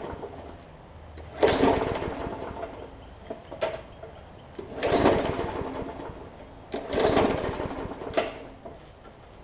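Briggs & Stratton OHV push-mower engine being pull-started three times. Each pull fires it briefly before it fades and dies again. It is struggling to start because of water left in the fuel.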